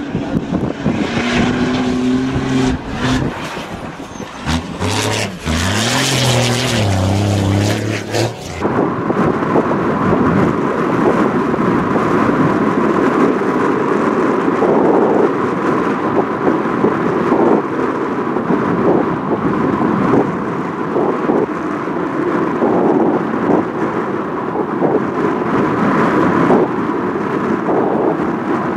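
Kamaz rally truck's diesel engine revving, its pitch rising and falling, with wind buffeting the microphone. About a third of the way in, the sound changes abruptly to a steady loud rumble of wind on the microphone, with distant truck engines in it.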